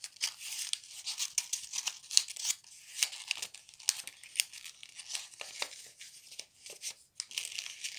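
A sheet of white paper rustling and crinkling as it is folded by hand and its corners tucked under, with many short, irregular crackles.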